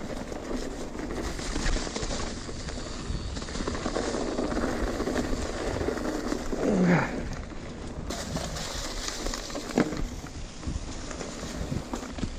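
Radon Slide Trail 10.0 mountain bike running fast down a rough, leaf-covered dirt trail: tyres rumbling and the bike rattling over the ground, with a brief louder swell about seven seconds in and a sharp knock near the end.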